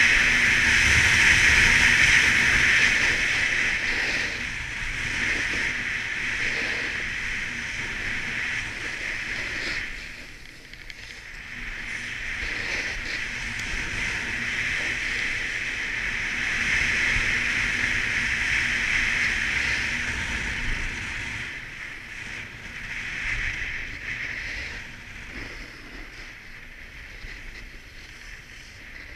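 Snowboard edge and base scraping on groomed snow while carving downhill: a steady hiss that swells and eases with the turns. It drops away about ten seconds in and fades near the end.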